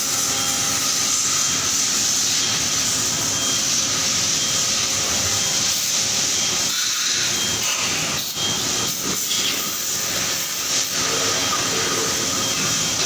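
Steady, loud hiss of factory machinery with faint steady tones, broken by a few short knocks about eight to eleven seconds in.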